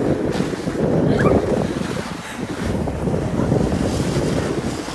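Wind buffeting the phone's microphone as the person filming skis downhill: a heavy, fluttering low rumble that eases a little after about two seconds.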